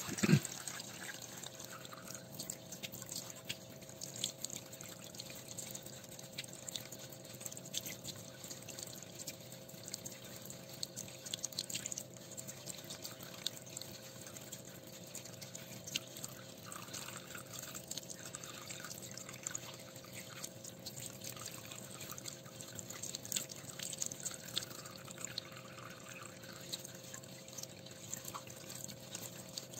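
Water dripping, splashing and trickling from a plastic tub into a sink as a soil sample is washed through a fine sieve to rinse out the clay and silt for a sand-content test. There is one brief loud knock right at the start, and a faint steady hum underneath.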